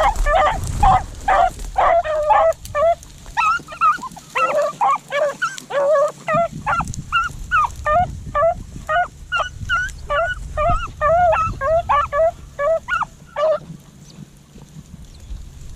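Rabbit-hunting beagles baying in a steady run of short, pitched calls, about two a second, as the pack runs a rabbit's trail. The calls stop shortly before the end.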